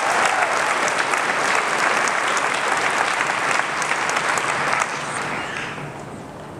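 Audience applauding, a dense clatter of many hands that dies away about five seconds in.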